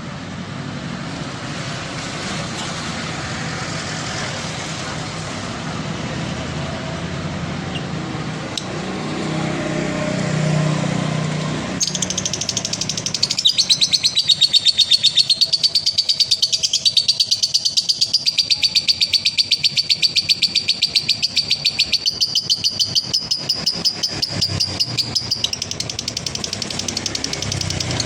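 A steady noisy rumble for the first twelve seconds or so. Then a male lovebird breaks into its long, rapid, high-pitched rattling chatter (ngekek) with many strokes a second, which runs on for about fifteen seconds.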